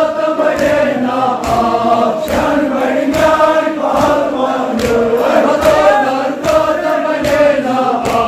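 A crowd of men chanting a noha (Shia mourning lament) in unison, with rhythmic chest-beating (matam) strokes landing in time, a little faster than one a second.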